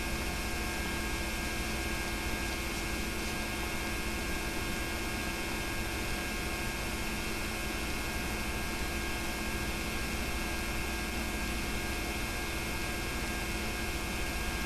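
Steady electrical mains hum with hiss, the background noise of a home VHS transfer of silent film; no other sound.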